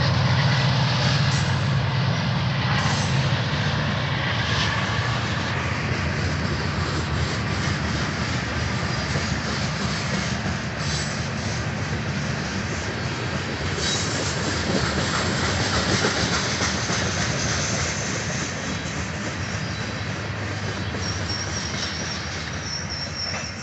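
Freight train cars rolling past: a steady rumble and rattle of steel wheels on the rails with clicking over the joints, slowly fading as the train goes by. A thin, high wheel squeal comes in near the end.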